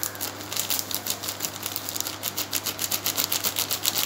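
Thin plastic packet crinkling in the hand as powder is tipped out of it, a rapid irregular run of crisp crackles over a low steady hum.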